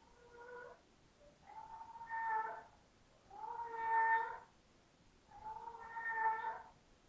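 A cat meowing over and over: four long, drawn-out calls about two seconds apart, each holding a steady pitch. The first is faint and the later ones are louder.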